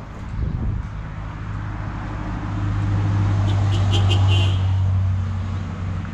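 A road vehicle passing on the road alongside, growing louder to a peak about four seconds in and then fading, over a steady low rumble.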